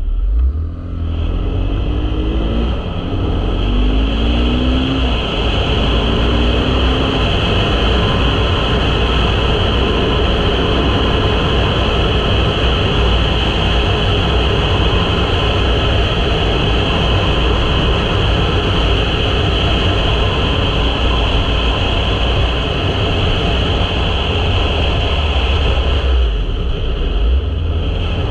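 2023 KTM 500 EXC-F single-cylinder four-stroke engine pulling away through the gears. Its pitch rises three times with short breaks between shifts in the first several seconds, then it runs steadily at cruising speed with a heavy low rumble. The sound eases off a little near the end.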